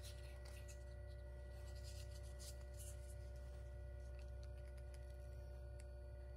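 Steady low electrical hum with a few faint steady higher tones over it. In the first three seconds there is faint scratchy rubbing from the leather sheath being handled.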